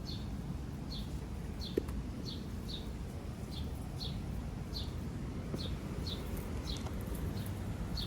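A small bird chirping, one short, slightly falling chirp repeated about one and a half times a second, over a steady low background rumble.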